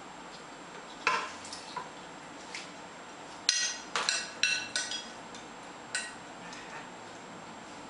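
A utensil knocking and clinking against a pot and bowl as seasoned glass noodles are tipped and scraped into a rice cooker's inner pot. A few soft knocks come in the first two and a half seconds, then a quick run of ringing clinks from about three and a half to five seconds, and one more near six seconds.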